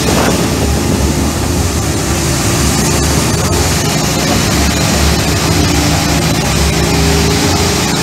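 Ride-on concrete power trowel running steadily, its engine and spinning blades making a loud, even drone.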